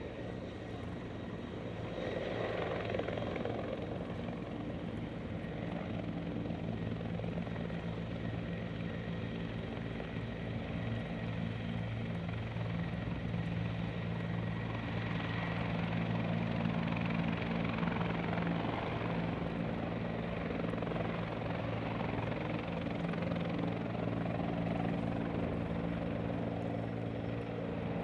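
Aircraft propeller engine of a de Havilland DHC-3 Otter floatplane running steadily. It grows louder about two seconds in and is at its loudest a little past the middle.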